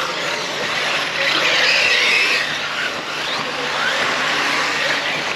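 Radio-controlled off-road race cars with brushless electric motors racing: a high whine of motors and drivetrains over tyre and dirt noise. It grows louder for about a second and a half as cars pass close.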